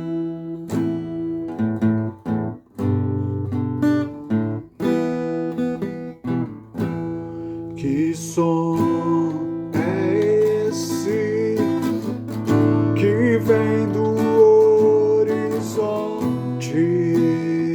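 Acoustic guitar being strummed, joined by a singing voice about eight seconds in.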